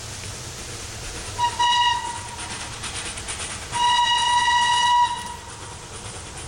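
Steam whistle of FS Class 625 steam locomotive 625 100: a short blast, then a longer, steady blast about two seconds later, as the locomotive approaches.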